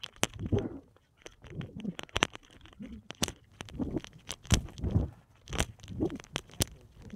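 Irregular thumps and sharp clicks: footsteps on a concrete sidewalk and handling noise on a hand-held phone's microphone.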